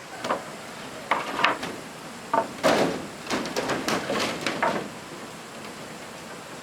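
A run of irregular wooden knocks and scrapes lasting a few seconds, as of timber being handled.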